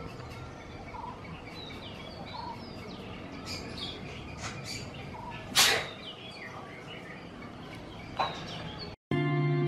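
Many birds chirping and calling over a low steady background hum, with one loud, short, harsh sound about halfway through and a smaller one near the end. Music starts abruptly just before the end.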